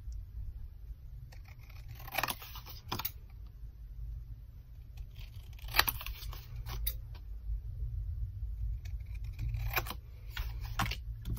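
Scissors cutting craft paper: several short, sharp snips spaced a second or more apart, with quieter paper handling between them.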